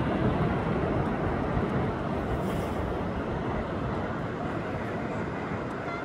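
Pacific surf breaking on a sandy beach: a steady, dense rush of noise with no single crash standing out.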